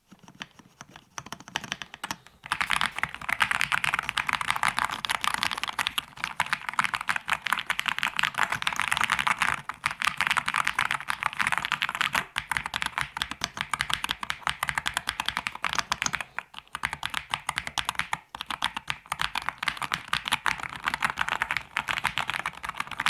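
Fast typing on an Akko SPR 67 custom mechanical keyboard with stock switches: a dense stream of keystroke clacks. It is light at first and steady from about two and a half seconds in, with a few brief pauses.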